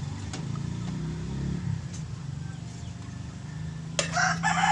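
A rooster crows about four seconds in, loud and drawn out, over a steady low rumble.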